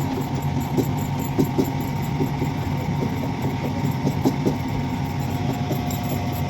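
A steady low motor hum with a faint steady whine over it, and light irregular ticks and clinks throughout.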